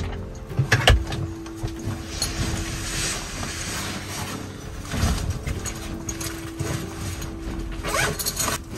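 Bags and clothing rustling and bumping as a backpack and shoulder pouch are taken off and set down, with two sharp knocks in the first second and a few louder bumps later on.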